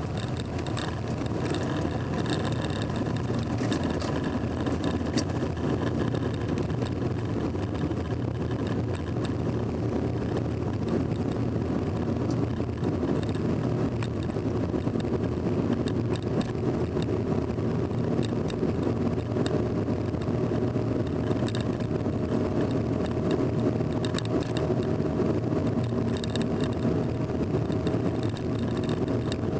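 Car running along a road, heard from inside the cabin: a steady rumble of engine and tyre noise with a few faint ticks.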